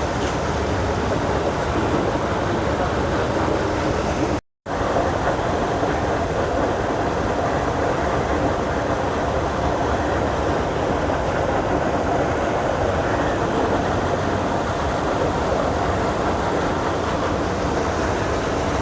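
Steady outdoor background noise, an even hiss with no distinct tones, which cuts out completely for a moment about four and a half seconds in.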